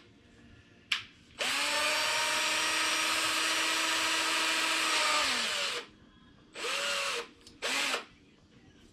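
Electric drill spinning: a brief blip, then a steady run of about four seconds that winds up and runs down, then two short bursts.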